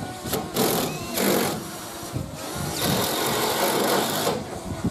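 Power drill running in three bursts, two short and then a longer one of about a second and a half, as it drives fixing screws into the steel roof sheets.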